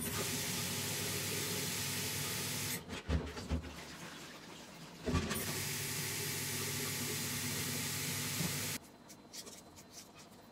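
Kitchen tap running cold water into a metal pot of just-boiled eggs, to cool them and stop them cooking. The water runs in two spells of about three seconds with a few knocks in between, then is turned off sharply about nine seconds in.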